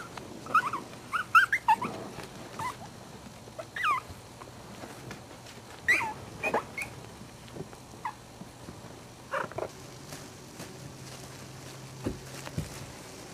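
Puppies squeaking and whimpering while they play: short high-pitched calls that bend in pitch, a quick cluster at the start and then single squeaks every couple of seconds.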